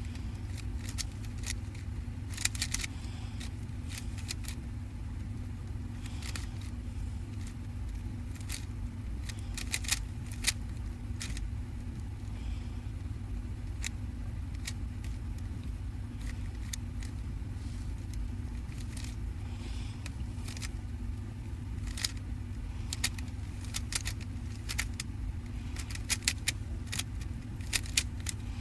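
A 3x3 Rubik's cube being turned fast during a speedsolve: quick, irregular clicks of the plastic layers, often in short clusters, over a steady low hum.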